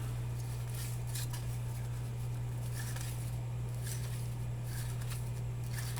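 Faint, scattered rustles and slides of baseball cards being handled and flipped through, over a steady low hum.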